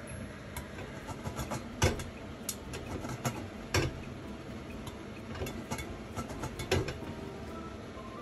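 Popcorn kernels popping in hot oil in a lidded stainless-steel pot over a steady sizzle: scattered sharp pops, three of them loud, about a second, three and a half seconds and six and a half seconds in.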